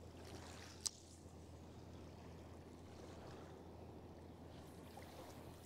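Faint steady riverside background with a low hum and soft water noise, broken by a single sharp click about a second in.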